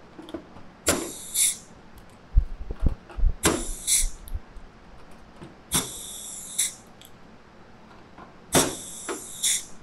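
Pneumatic Cleco tool (Nova pistol-grip Cleco installation tool) working Clecos out of an aluminium skin: four air cycles, each a short hiss followed by a second hiss about half a second later. A few low knocks come between the first and second cycles.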